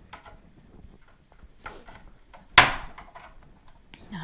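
Flat-blade screwdriver prying at the edge of a Starlink Gen 3 router's plastic case: small clicks and scrapes, then one loud sharp snap about two and a half seconds in as the case gives, followed by a few light clicks.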